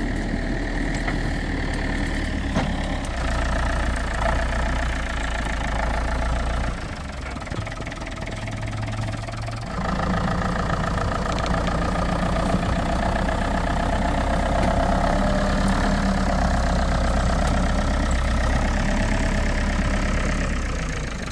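Case tractor engine running while it backs a wagon through snow. Its sound drops back for a few seconds about a third of the way through, then picks up again and holds steady.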